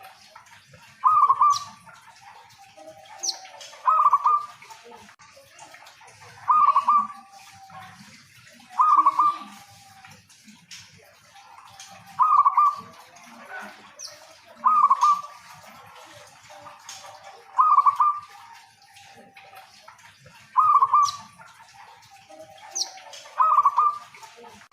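Zebra dove (perkutut) cooing: a short rolling phrase of quick notes, repeated nine times about every two and a half to three seconds.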